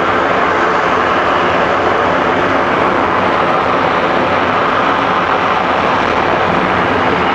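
McDonnell Douglas MD-80's rear-mounted Pratt & Whitney JT8D turbofan engines at takeoff thrust: a loud, steady rushing jet noise that does not change.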